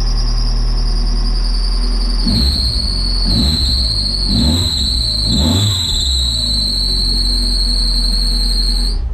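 Mazda MX5 engine running with a loud, steady high-pitched squeal from a loose, squeaky fan belt that needs tightening. The engine is revved about four times a few seconds in, then shut off suddenly near the end.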